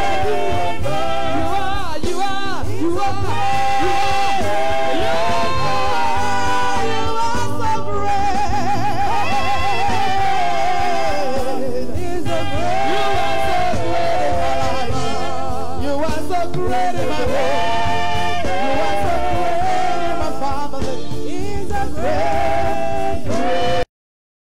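A woman singing a gospel song into a microphone, with live band accompaniment. Her voice slides between notes and wavers on long held ones. Near the end the sound cuts out abruptly for under a second.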